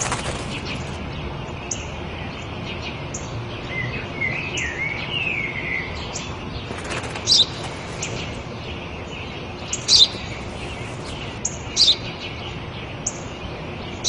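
Sparrow chirping: short high chirps about every second and a half, a brief warbling run around four to six seconds in, and louder falling chirps at about seven, ten and twelve seconds in.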